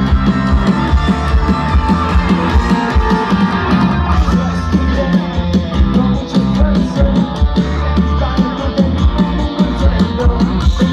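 Live rock band playing: electric guitars over a steady drum beat, with the lead singer singing into the microphone.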